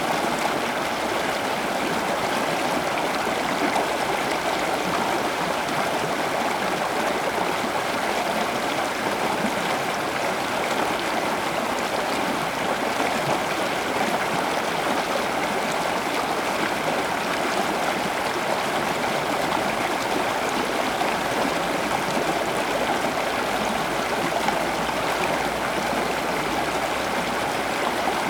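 Steady running water, a continuous gurgling stream-like rush with no breaks.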